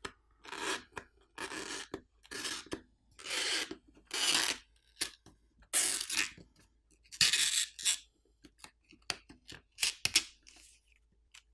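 Adhesive-backed graphite heat-spreading film being peeled off a Samsung Galaxy S24 Ultra's metal midframe. It makes a run of short tearing, crackling rasps, about one a second, that thin to brief ticks near the end.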